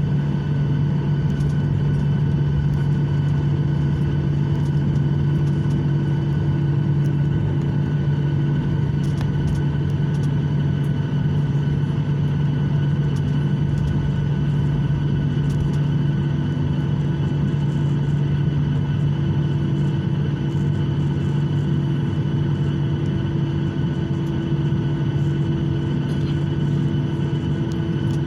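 Steady drone inside an airliner cabin while taxiing after landing: a constant low hum with fixed higher tones from the engines and air system, level throughout.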